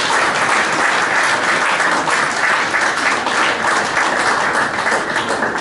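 A group of people applauding, a dense steady patter of clapping that dies away at the end.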